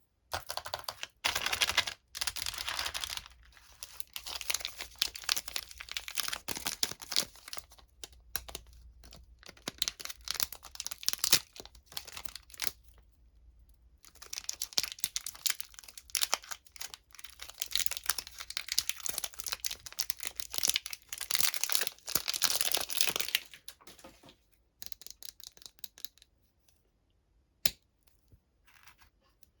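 Candy wrapper packaging being torn open and crinkled by hand, in repeated bursts of rustling and tearing. After about 24 seconds there are only a few scattered clicks and taps.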